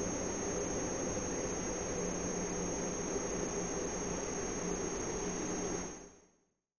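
Fusion reactor machinery running: a steady electrical hum and hiss with a constant high-pitched whine above it, fading out about six seconds in.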